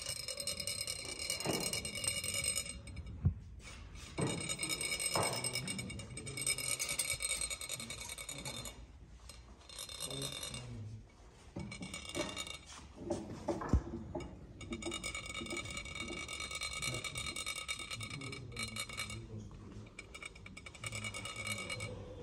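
Metal chak-pur sand funnel rasped with a rod along its ridged shaft to make coloured sand trickle out. It gives a high, ringing rasp in runs of a few seconds, with short pauses between them and a couple of sharp taps.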